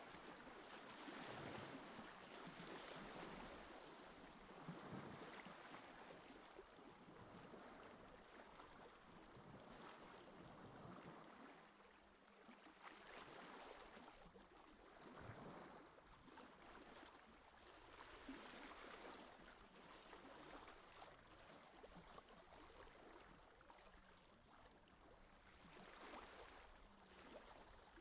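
Faint small sea waves lapping on a beach, a soft wash that swells and fades every few seconds.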